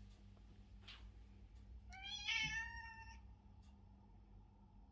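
A ginger cat gives one meow about two seconds in, rising in pitch and then held for about a second: a demand to be petted.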